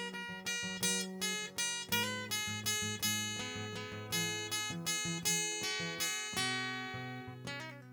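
Acoustic guitar playing a melody in quick plucked notes and chords, about three or four a second over ringing bass notes.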